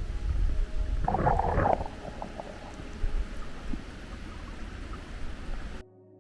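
Stream water heard through a submerged camera: a low rumbling current with a burst of bubbling gurgle about a second in, then quieter. Near the end it cuts off abruptly to a faint steady hum.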